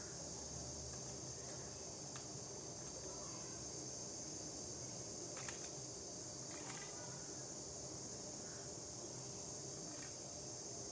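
A few faint clicks of a 3×3 Rubik's cube's layers being turned, over a steady high-pitched hiss.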